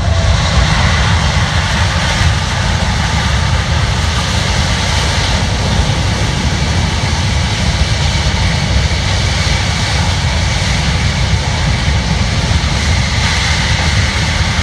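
Boeing C-17 Globemaster III's four turbofan jet engines running loud and steady, a deep rumble with a broad hiss over it. The noise jumps up right at the start and then holds.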